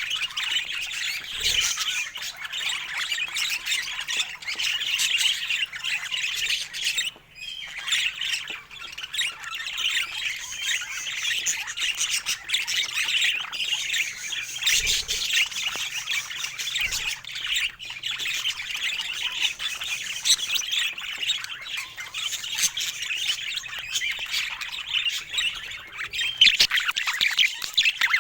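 Budgerigar chatter: a continuous stream of rapid, busy warbling and calls, with a brief lull about seven seconds in.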